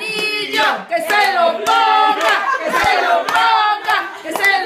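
A small group of excited people squealing and cheering over one another in high voices, with scattered hand claps.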